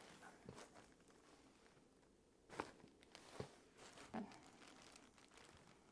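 Mostly quiet room with a few faint clicks and rustles, about two and a half, three and a half and four seconds in, from handling during an upper cervical chiropractic adjustment on a treatment table.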